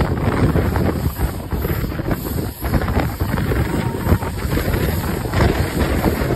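Train running at speed: a loud, steady rumble of the train mixed with heavy wind buffeting the microphone.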